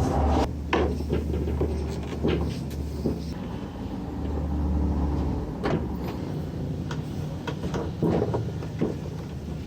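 Scattered clicks and knocks of hardware being handled, over a low hum that swells and fades.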